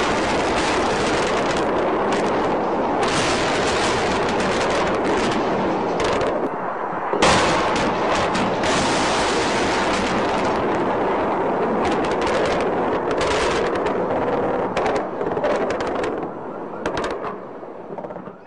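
Dense rapid automatic gunfire mixed with explosions, with a heavy blast about seven seconds in. The firing thins out and fades away near the end.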